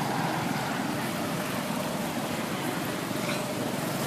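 Steady outdoor traffic noise from motorbikes running along a nearby road, with a faint steady tone coming in about halfway through.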